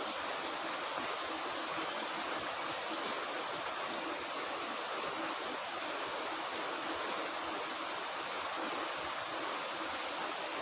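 Water of a stream or spring running, a steady even rush with no breaks.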